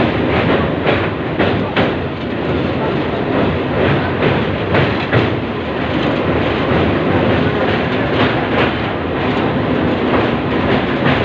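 Indian Railways passenger train running along the track, a steady loud rumble with repeated clickety-clack of the wheels over rail joints, heard from inside the coach.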